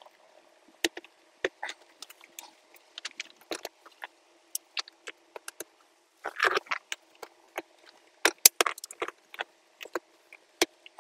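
Irregular sharp plastic clicks, taps and rattles of trim clips and wiring connectors being handled and pushed back into place under a car's dashboard. A louder bout of rattling comes about six and a half seconds in, and several sharp snaps follow a little after eight seconds.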